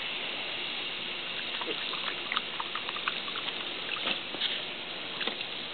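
Light splashing and trickling of water in a plastic kiddie pool as a duck tolling retriever drinks from it and steps in with a front paw, with small irregular splashes over a steady watery hiss.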